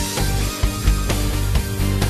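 Instrumental rock music with a steady drum beat.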